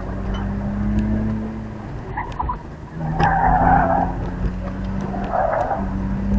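BMW E46 325xi's 2.5-litre straight-six running under load, heard from inside the cabin, its note rising and falling. The tyres squeal twice at the limit of grip, about three seconds in and again near five and a half seconds.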